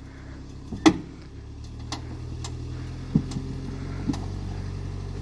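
Vehicle engine running under load off-road, a steady low drone growing louder, with a few sharp knocks and clunks along the way.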